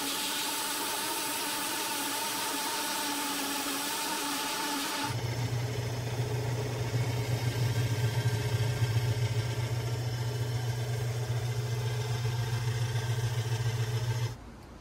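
Belt grinder running with a steady hiss and whine as a knife handle is sanded against the belt. About five seconds in, this changes abruptly to a steady low hum from a drill press spinning a felt buffing wheel to polish the handle.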